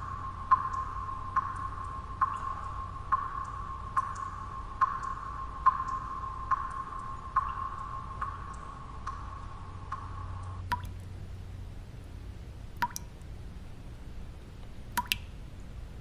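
Water drops falling one by one with a short ringing plink, a little more than one a second, then thinning to about one every two seconds after about eleven seconds. A steady low noise bed runs underneath.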